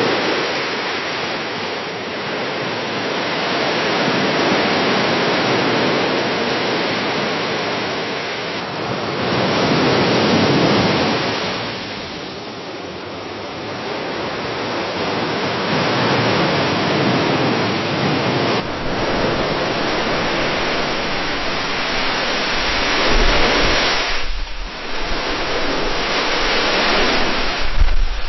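Small waves washing and splashing against a dock, swelling and easing every few seconds. Three separate recordings are joined, with an abrupt change about 9 seconds in and again about 19 seconds in, and a low rumble under the last third.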